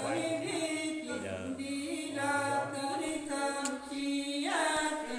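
A woman singing a Nùng folk song without accompaniment, in long held, slightly wavering notes, with short breaks between phrases.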